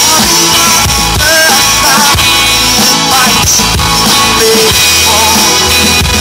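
Live rock band playing loudly: electric guitars over a drum kit keeping a steady beat, heard through the stage PA.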